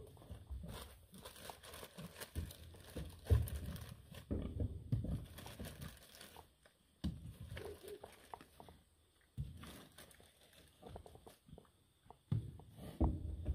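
A plastic bag crinkling in hand, among irregular low knocks and rustles.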